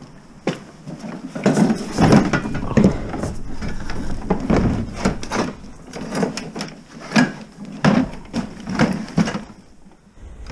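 Ice-fishing gear being handled and loaded into a black plastic sled on a wooden plank floor: a run of irregular knocks and bumps.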